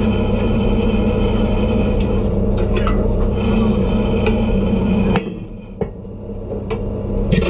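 Steady machinery hum with a pitched drone that drops away suddenly about five seconds in as the round pressure hatch of a saturation chamber shuts. Metal clicks follow, then a sharp clank near the end as the hatch's latch is worked.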